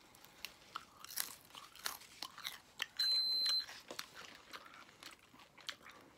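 Mouth-close chewing and crunching of crisp KFC fried food, in irregular crunches. About three seconds in, a short, loud, high-pitched beep lasts just over half a second.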